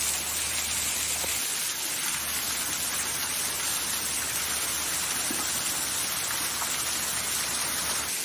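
Small waterfall spilling down a rock face and splashing onto the rocks below: a steady, even rush of falling water.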